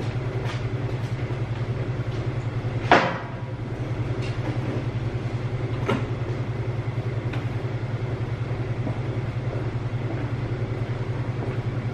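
Workshop sounds: a steady low hum with a fast, even pulse, and a few scattered knocks, the loudest about three seconds in.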